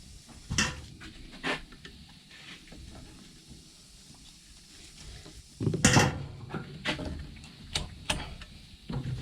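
Scattered clicks, knocks and rattles of hands and a tool working old nets out of a quad's nerf bars, with a cluster of louder knocks about six seconds in.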